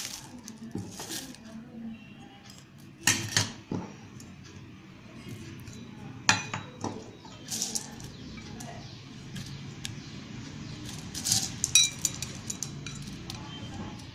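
Small bowls and cups clinking against a stainless steel mixing bowl as ingredients are tipped in: a handful of sharp clinks spread through, the loudest a little before the end, with a brief metallic ring.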